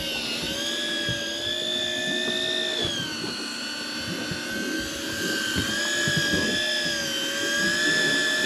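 Daiwa Tanacom electric fishing reel's motor whining steadily as it winds in line, its pitch wavering slightly, with a few soft knocks underneath.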